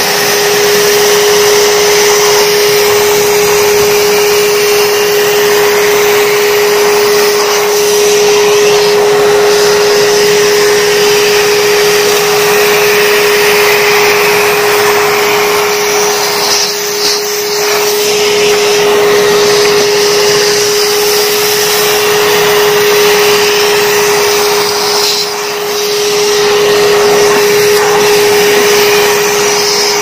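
Euroclean WDX2 wet-and-dry vacuum cleaner running steadily, a high motor whine over a rushing hiss of suction, as it sucks stuck dust out of a sliding window track. The suction sound dips briefly twice, a little past halfway and again near the end.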